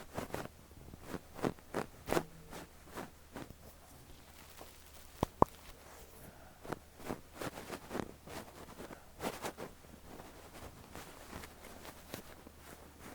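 Fluffy down puff brushed against an ear microphone: soft, irregular rustling strokes. Two sharp clicks come close together about five seconds in.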